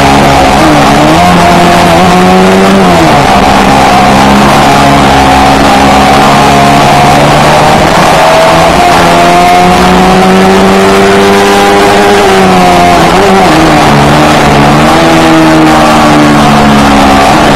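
Yamaha R3's parallel-twin engine through an Akrapovic GP exhaust, recorded on board while riding and very loud. The engine note rises and drops several times with throttle and gear changes, holding steady in between.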